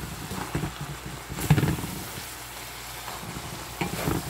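Sautéed vegetables and Malabar spinach sizzling in a pan while a spatula stirs them, with a few knocks and scrapes of the spatula against the pan, the loudest about a second and a half in.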